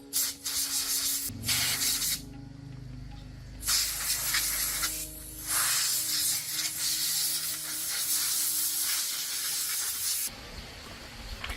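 Hissing spray in four bursts separated by short pauses, the last and longest lasting about four and a half seconds.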